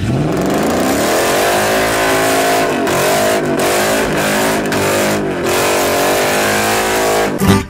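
Dodge Ram pickup truck's engine revving high through a burnout, with the hiss of spinning tyres. The revs climb over the first second, then hold near the limiter with a few brief dips.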